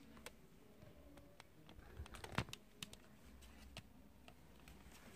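Faint, scattered clicks and taps from the ring light stand being handled and adjusted, the loudest a sharper knock about two and a half seconds in.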